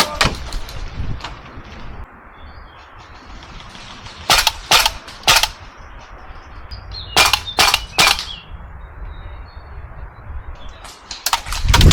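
Airsoft rifle firing sharp single shots in two quick groups of three, each shot about half a second apart, the second group about three seconds after the first.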